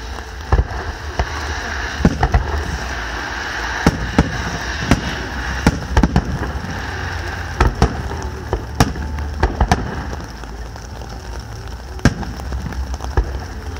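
Fireworks display: aerial shells bursting with sharp, irregularly spaced bangs, about one a second and sometimes in quick pairs, over a steady hiss.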